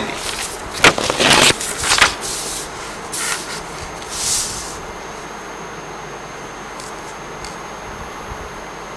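Sheets of paper being handled and slid across a desk as a written page is swapped for a blank one: a series of short rustles and scrapes over the first four seconds or so, then a steady faint hiss with a few light ticks.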